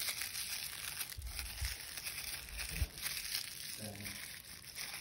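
Thin plastic wrapping crinkling and rustling as fingers pick at a small wrapped toy piece, with a few soft handling knocks.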